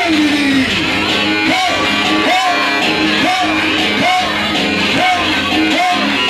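Loud dance music with some singing: a short rising-and-falling melodic phrase repeats about once a second over a steady backing.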